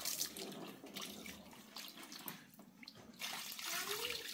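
Water poured from a plastic basin splashing and running over a stone metate and its hand stone as they are rinsed, louder from about three seconds in.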